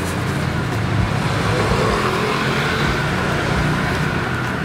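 Road traffic: a motor vehicle's engine running close by, swelling through the middle and easing off near the end, over a steady low hum.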